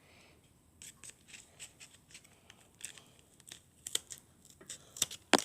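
Scissors snipping through thick folded paper: a run of short, irregular snips and clicks, the loudest near the end.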